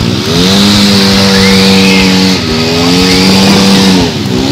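Side-by-side UTV engine revving up and held at high revs as the tyres spin and throw mud, easing off briefly about halfway through and again near the end before climbing again, over a steady hiss.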